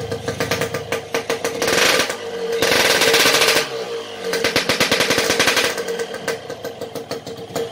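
Yamaha RX-King two-stroke single running through a freshly made, hollowed-out straight-through homemade exhaust: a rapid crackling idle blipped up three times, very noisy ('berisik banget'). The exhaust is so loud because it has been bored out and is still new and dry, with no oil residue inside yet.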